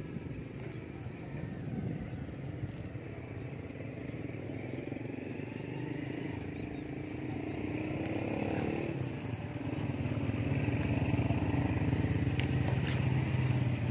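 A small engine running steadily, its pitch dipping about eight seconds in, then louder over the last few seconds.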